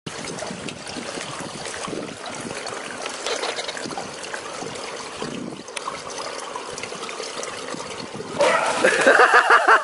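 Swimming-pool water lapping and sloshing as a swimmer moves underwater. About eight seconds in, a much louder run of quick, repeated rising-and-falling voice sounds begins and keeps going.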